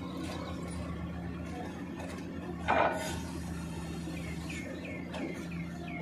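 Steady low hum of a Giken hydraulic press-in piler working a steel sheet pile, with a short loud burst of noise about three seconds in and a run of six short falling chirps near the end.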